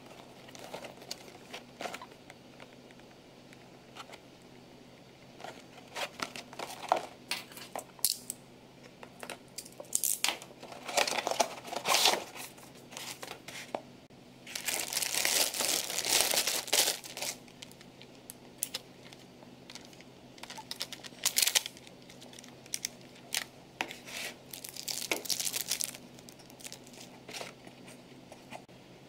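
Toy packaging being opened and handled: a cardboard box and pulp tray rustled and knocked, and a thin plastic bag crinkled as it is pulled off the toy, in irregular bursts, the longest and loudest about halfway through.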